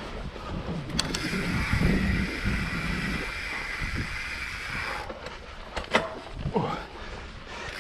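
Mountain bike rolling over a dirt trail: steady tyre and wind rumble with occasional sharp knocks and rattles from the bike.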